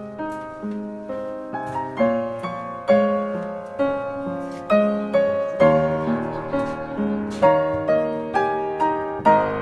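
Background piano music: a gentle melody of struck notes, each ringing and dying away, with held chords beneath.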